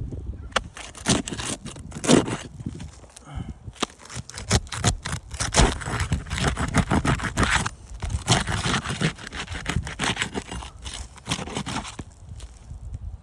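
Asphalt roof shingles being pried up for a repairability test, their sealant strips breaking loose with scraping, crackling and tearing in a quick series of strokes. The strokes ease off about a second before the end.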